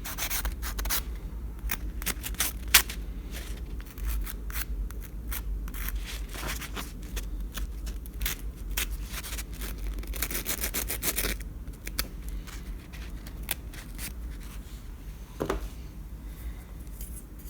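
Small sanding block rubbing on the tip of a copper sandpiper figurine's broken leg, in short irregular strokes, cleaning the metal to bare copper before it is soldered.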